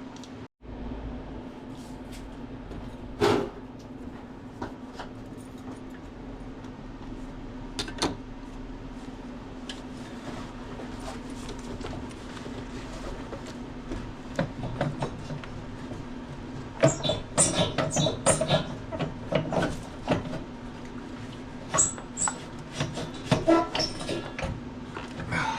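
Ford 6.0 diesel turbocharger being wiggled and pried loose by hand in the engine bay: scattered metal knocks, then a run of rattling clanks and scrapes in the second half as it works free of its oil drain tube. A steady low hum runs underneath.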